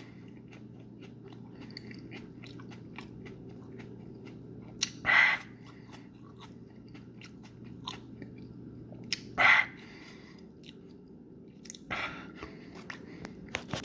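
A person chewing a large, juicy hot pepper pod with the mouth full, giving many soft wet clicks. Three louder breathy gulps come about five, nine and twelve seconds in as the pod is swallowed down.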